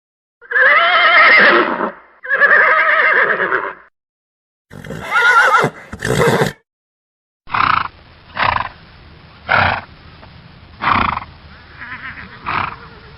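Horse whinnying: two long, wavering neighs one after the other, then a shorter two-part neigh, each clip cut off into dead silence. After that come five short, sharp horse blows or snorts at uneven spacing of about one to one and a half seconds.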